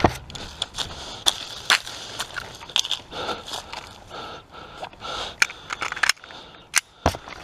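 Footsteps crunching and snapping through dry dead branches and leaf litter, with irregular sharp cracks of twigs breaking underfoot.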